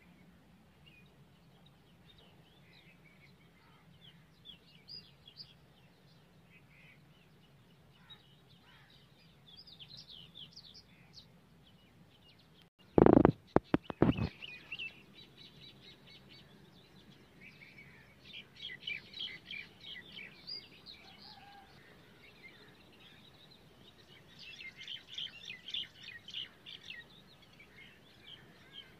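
Small birds chirping and calling outdoors, with short quick runs of repeated notes. About halfway there is a brief cluster of loud thumps.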